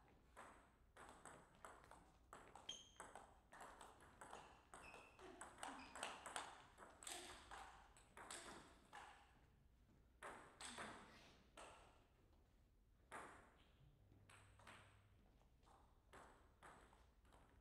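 Table tennis ball clicking off the paddles and the table in short, sharp, irregular knocks through a serve and rally, with the hits packed closest and loudest around the middle.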